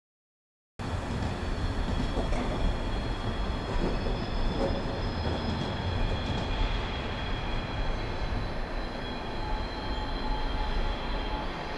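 A passenger train moving through a station: a steady low rumble with thin, high, squealing tones held over it. It starts abruptly just under a second in.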